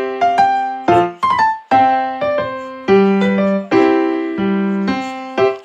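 Background piano music: a light melody of single struck notes, each fading after it is played.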